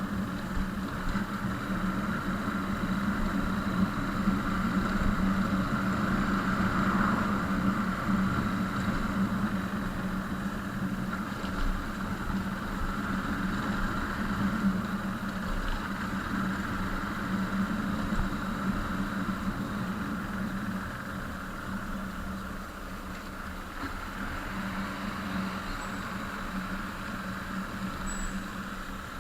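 A vehicle engine running steadily, a low even hum that grows a little quieter in the last third.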